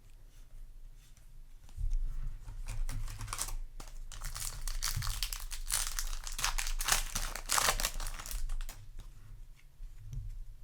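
Foil booster-pack wrapper being torn open and crinkled in the hands, a run of rustling and crackling that runs for several seconds and fades near the end.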